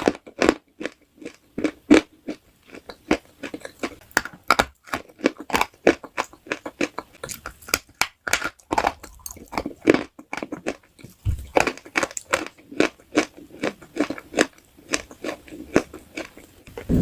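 Close-up crunching and chewing of a crisp, brittle food: a dense, irregular run of sharp crackles, several to the second.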